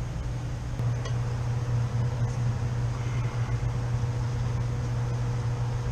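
Air-conditioning condensing unit running with a steady low hum, its condenser fan motor not running while the pressure sits near 200 psi.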